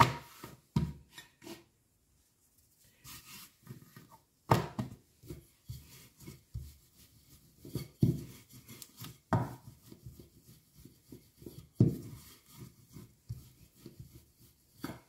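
Wooden rolling pin rolled back and forth over a stiff sheet of sesame-seed dough, a rubbing sound broken by several knocks.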